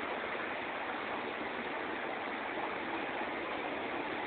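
Steady, even rushing hiss of running water and aeration in a room of aquarium tanks.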